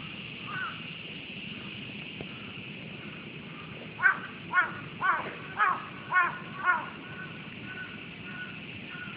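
A crow cawing six times in quick succession, over a steady high-pitched background hum.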